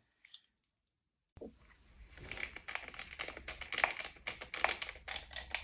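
Small screwdriver driving screws back in to secure a 2.5-inch SSD in a laptop: a run of quick, light clicks and ticks that begins after about a second and a half of silence.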